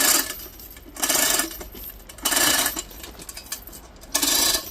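A metal mechanism worked in repeated strokes, clattering in four short bursts a little over a second apart.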